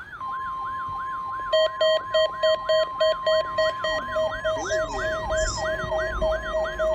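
Several NOAA weather radio receivers alarming at once for the weekly test. The broadcast's steady warning alarm tone is heard, with one receiver's siren warbling up and down about three times a second, and from about a second and a half in, another receiver's rapid alert beeping at about the same rate.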